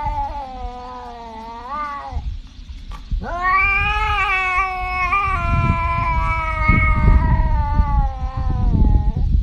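Domestic cat yowling in long, drawn-out calls: one trails off about two seconds in, then a single long yowl of about six seconds that wavers up and down in pitch.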